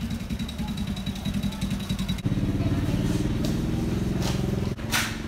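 An engine running steadily with a rapid low throb, which gets louder about two seconds in. A short hiss sounds near the end.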